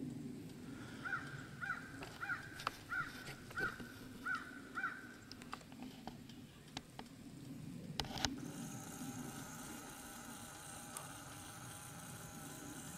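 A crow cawing, a run of about seven caws evenly spaced over the first five seconds. Scattered faint ticks follow, then two sharp clicks about eight seconds in, after which a faint steady hum sets in.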